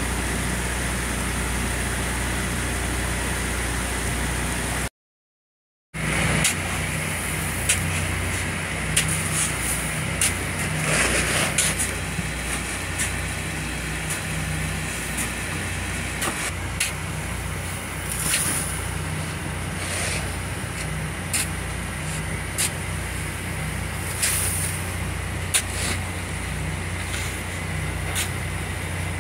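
A steady low engine hum with scattered short knocks and clanks. The sound drops out completely for about a second, about five seconds in.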